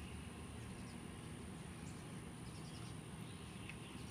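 Quiet outdoor background: a steady low hum of ambient noise with a few faint, short bird chirps.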